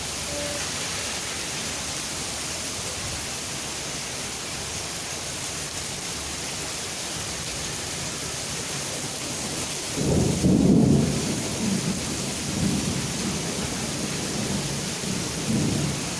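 Steady rain hissing down, with thunder breaking in about ten seconds in as a loud low rumble that keeps rolling on and off.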